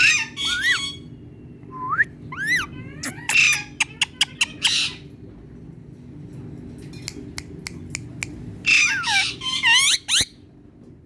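Indian ringneck parrot calling in short gliding whistles and harsh squawks, with runs of sharp clicks in between, over a steady low hum.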